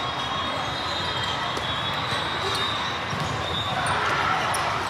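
Volleyballs being hit and bouncing on a gym court, over a steady din of voices echoing in a large hall.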